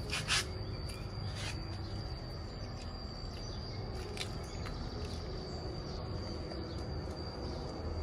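A few short, light crackles of lychee shells being peeled by hand, the loudest about a third of a second in, over steady outdoor background noise with an even high-pitched whine.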